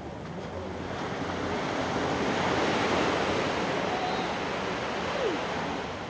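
Small sea waves breaking and washing up a sandy beach. The surf swells to a peak about halfway through, then eases back.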